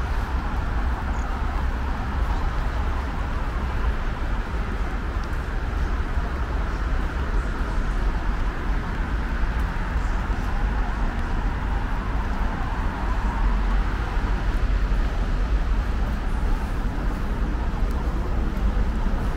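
Steady city street traffic noise: a constant low rumble of vehicles with an even hiss over it, no single event standing out.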